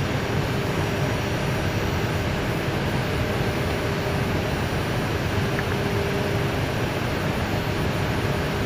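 Steady rushing noise inside an Airbus A319 cockpit in flight on approach, with a faint steady hum underneath.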